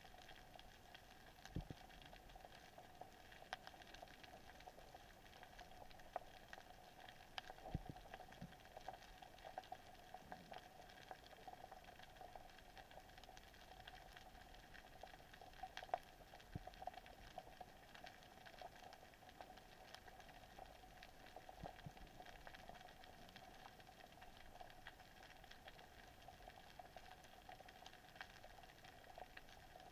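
Faint underwater crackle: a steady fizz of tiny clicks with a few louder single clicks here and there, the ambient sound of a shallow seabed heard underwater.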